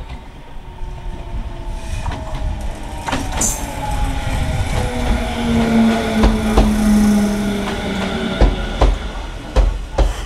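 Echizen Railway 7000-series electric train running past close by and slowing: a motor whine that slides down in pitch, with a hum under it and a string of sharp wheel knocks over rail joints as the cars go by.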